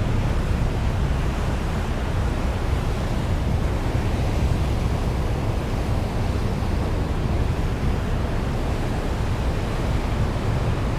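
Steady rush of wind and rough sea water streaming past a ferry at sea, heavy in the low end, with no distinct events.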